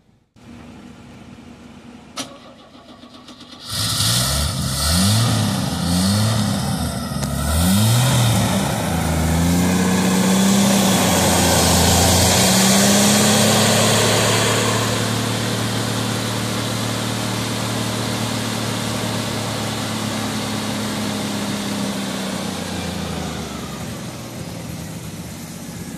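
Old Chevrolet pickup's engine, jump-started from a dead battery, coming to life about four seconds in and revved up and down several times. It then runs fast and steady, slowly easing back toward idle.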